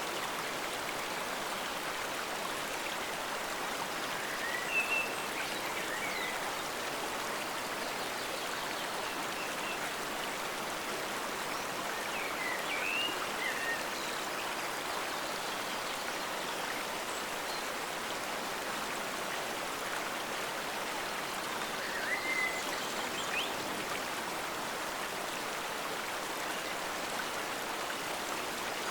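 A forest stream flowing steadily, a continuous rushing of water. Short high chirps, most likely small birds, come in three brief clusters: early on, around the middle and about three-quarters of the way through.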